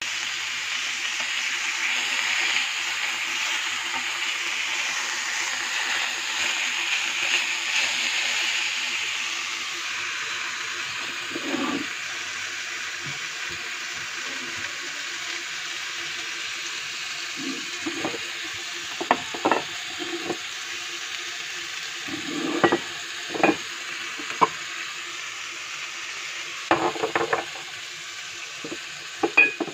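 Lamb leg steaks sizzling in a frying pan, the hiss loudest for the first ten seconds or so. Short clinks and knocks break in repeatedly over the second half, some in quick clusters.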